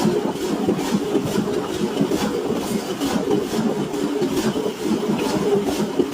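Steady mechanical clatter of heavy machinery running, with sharper knocks about twice a second.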